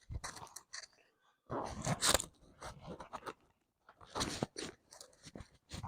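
Irregular rustling, scraping and clicking of small items being handled and packed into a small fabric side pouch.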